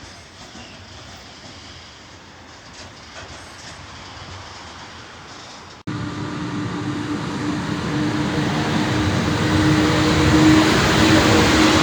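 Quiet background noise, then after a sudden cut about halfway through, an electric-hauled freight train approaches. Its rumble grows steadily louder, with a steady low hum from the locomotive.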